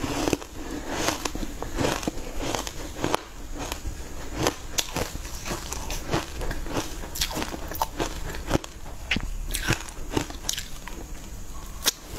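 Close-miked eating sounds: biting and chewing a soft cake coated in green crumbs, with many short wet clicks and smacks from the mouth.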